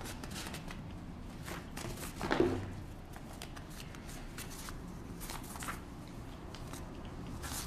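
Sheets of paper rustling and being shuffled close to a podium microphone, with a brief vocal sound a little over two seconds in.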